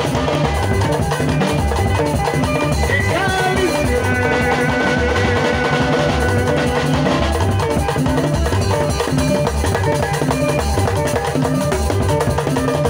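Band music with a steady drum-kit beat and bass line, with held melody notes running over it.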